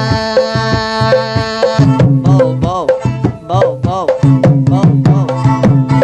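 Background music: a melody with bending notes over drum percussion.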